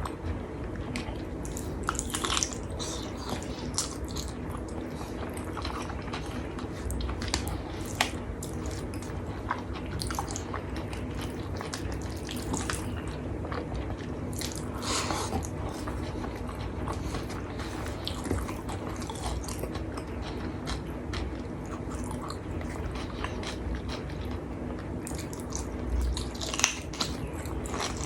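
A person eating nasi Padang close to the microphone: wet chewing and lip smacks with scattered short clicks, over a steady low hum.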